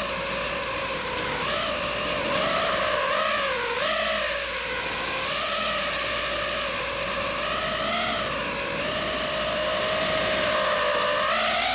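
Racing quadcopter's brushless motors and propellers whining steadily, the pitch dipping and rising again several times with the throttle and climbing near the end, over a steady high hiss.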